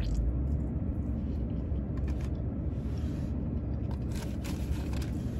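Steady low rumble inside a parked car's cabin, with a few brief faint clicks from eating off a fork.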